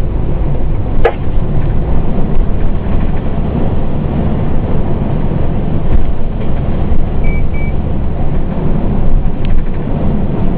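Steady rumble of a Pierce Enforcer fire engine's diesel engine and road noise, heard from inside the cab while driving. A sharp click comes about a second in, and two short high beeps come around seven seconds in.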